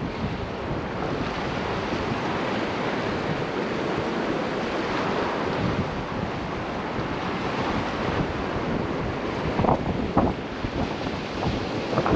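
Strong gusty wind buffeting the microphone: a steady rushing noise, with a few sharper gusts about ten seconds in.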